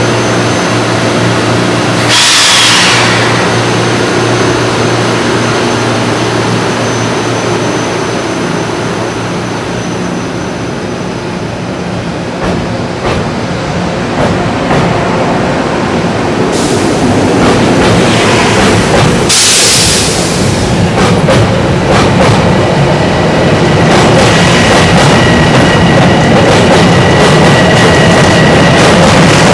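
Metro-North commuter train running through the station, its wheels clicking over the rails. There are two short, loud hisses, about two seconds in and again near twenty seconds, and a steady high whine joins in during the last few seconds.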